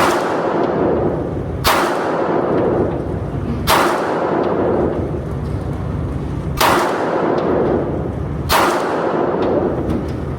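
Five single gunshots, one to three seconds apart, each a sharp crack with a short echoing tail.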